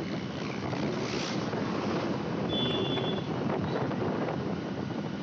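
Wind buffeting the microphone of a phone mounted on a moving motorcycle, over the steady running of the bike's engine and tyre noise. There is a short high-pitched beep just past halfway.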